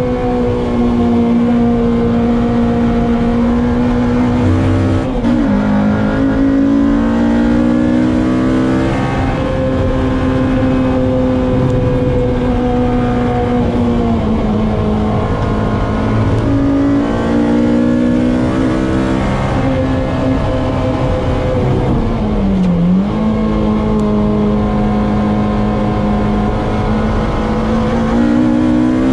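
Honda K24 four-cylinder engine in a Toyota MR2 at race pace, heard from inside the cabin, its revs climbing and falling through gear changes and braking. Twice, about five seconds in and near the end, the revs drop sharply and jump back up.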